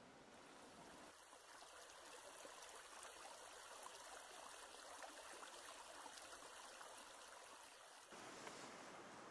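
Near silence: a faint, even rushing hiss of river ambience, with no bird calls.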